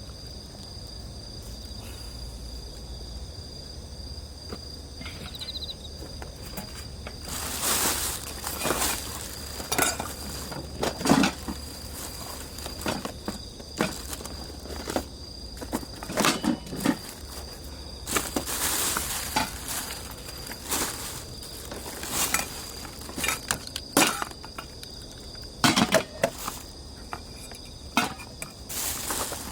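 Insects chirring steadily in one high, constant tone. From about seven seconds in, irregular crackles and knocks come from the campfire and its firewood.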